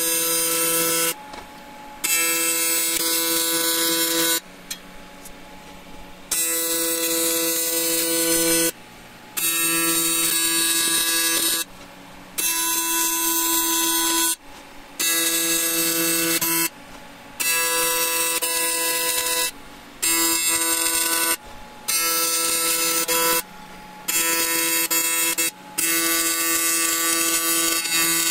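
AC TIG arc from a Miller Dynasty 400 welding aluminium, buzzing steadily in runs of about one to two seconds. It stops and restarts about a dozen times.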